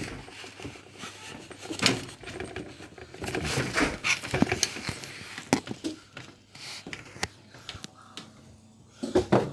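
Rustling and scattered knocks from a phone camera being handled and shifted close to the microphone, with a louder cluster of knocks near the end as a hand moves over it.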